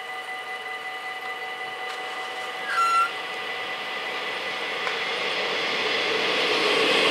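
Mechanical bells of a Dutch AHOB level crossing ringing steadily, while an approaching NS DDZ double-deck electric train makes a rushing noise that grows louder toward the end. A short, loud high beep sounds about three seconds in.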